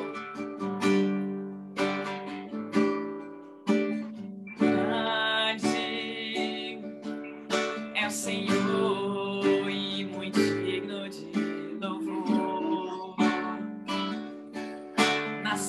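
Acoustic guitar strummed in chords, as the instrumental opening of a worship song, with a woman's voice singing along at times. The sound comes through a Zoom video call.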